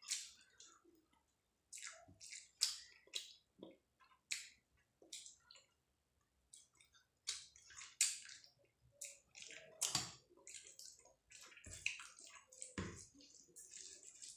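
Close-up eating sounds: wet chewing and lip smacks on mouthfuls of rice mixed with dal and curry, with fingers squishing rice on the plate, heard as irregular short crackly clicks.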